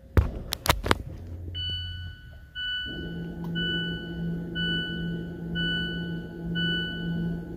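A few sharp clicks, then a Mazda's dashboard warning chime beeping about once a second as the ignition comes back on. A steady low hum starts under it about three seconds in.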